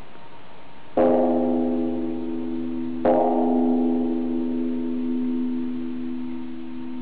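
Buddhist temple bell struck twice, about two seconds apart; each strike rings on in a long, slowly fading hum over a steady background hiss.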